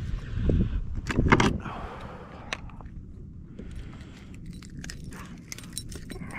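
Handling noise as a ladyfish is unhooked with pliers over a plastic kayak: several dull knocks and bumps, loudest about a second in, then scrapes and small clicks from the pliers and tackle.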